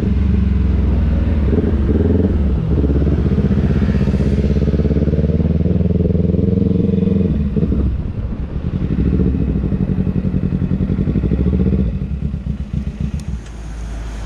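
Kawasaki Ninja 250 FI parallel-twin engine running through an Austin Racing aftermarket exhaust while the bike is ridden. It holds a steady note, dips briefly about seven and a half seconds in, and falls off and turns uneven after about twelve seconds as the bike slows.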